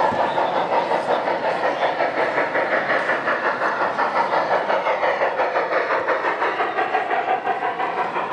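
Garden-scale model steam locomotive and freight cars running past on brass track, with a steady rhythmic clatter.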